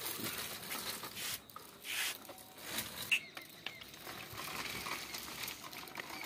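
Baby walker's small plastic wheels rolling over rough concrete, an irregular rattling and scuffing.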